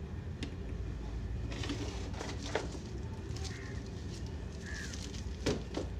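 Handling noise: the glue gun's cord and a plastic bag of glue sticks rustle and knock against the table a few times over a low steady hum, with the sharpest knock near the end. Two faint short chirps come in about the middle.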